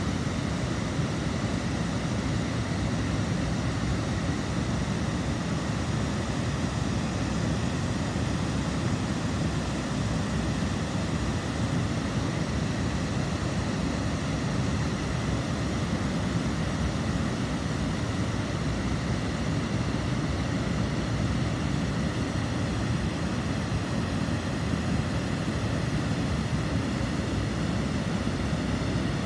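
Water pouring over a weir: a steady, unbroken rushing sound.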